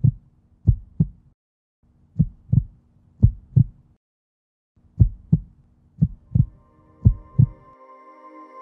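Heartbeat sound effect: paired lub-dub thumps about once a second, stopping briefly twice. A sustained synth chord swells in near the end.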